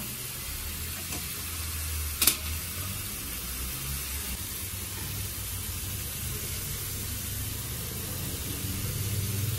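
Chicken curry sizzling steadily in a frying pan on a gas burner as shredded cabbage, carrot and capsicum are tipped in, over a low steady hum. One sharp knock about two seconds in.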